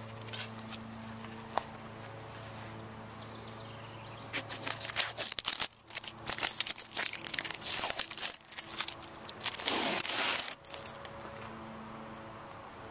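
A low steady hum, then, from about four seconds in to near eleven seconds, loud crackling and rustling right at the microphone.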